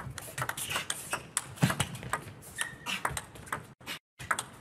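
Table tennis rally: the celluloid ball clicking sharply off the rackets and the table in quick, irregular exchanges. The sound cuts out briefly near the end.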